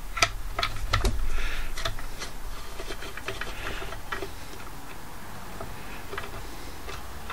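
Light metallic clicks and taps of a screwdriver shaft working inside a door lock's body to free the lock cylinder, a dozen or so at uneven intervals.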